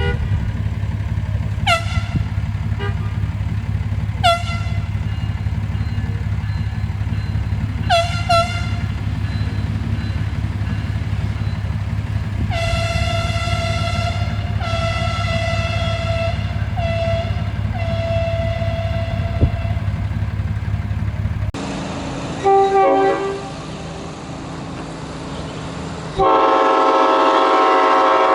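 Train horn over a steady low locomotive rumble: a few short toots, then four blasts, long, long, short, long, the grade-crossing signal. After a cut, a louder many-note chord horn sounds steadily near the end.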